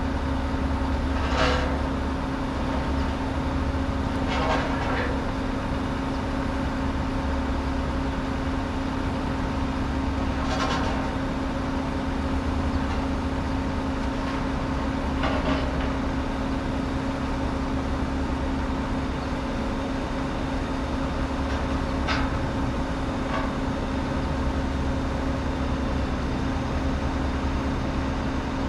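A truck's engine running steadily with a low drone, broken by about five sharp metal clanks from a steel load being rigged and lifted off a flatbed by a crane truck.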